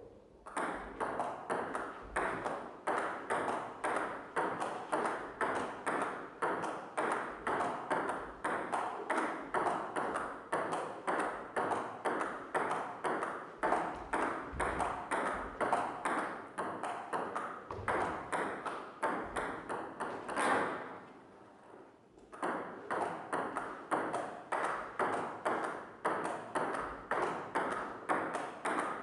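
A rapid, steady series of ringing pings, a few each second, which stops briefly about twenty seconds in and then starts again.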